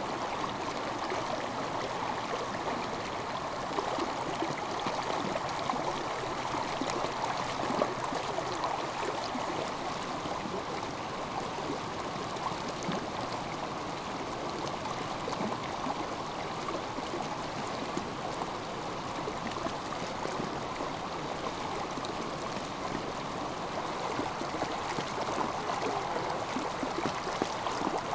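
A stream running steadily: an even wash of flowing water.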